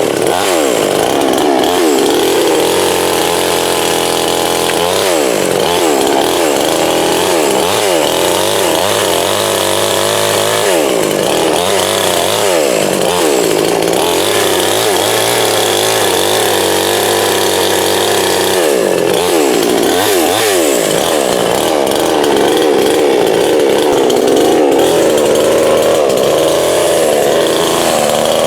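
58cc two-stroke gas chainsaw running loud, its engine pitch repeatedly dropping and climbing again as it is throttled and loaded while cutting dead pine wood.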